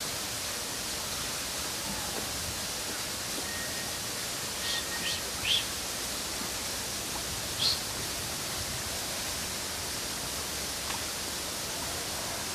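Steady hiss of tropical forest ambience, with a few short high-pitched chirps about five seconds in and one more near eight seconds.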